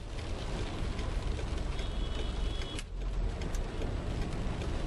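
Rain pelting a car's windshield and roof, heard from inside the cabin as many small taps over a steady low rumble of the car and traffic. A faint high tone sounds for about a second near the middle.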